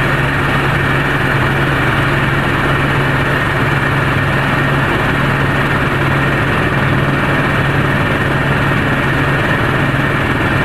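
Helicopter turbine and rotor running steadily, heard from inside the cabin as a loud, even din over a constant low hum.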